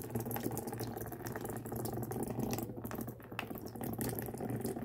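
Water pouring steadily into a container of Orbeez water beads, running with a light crackle throughout.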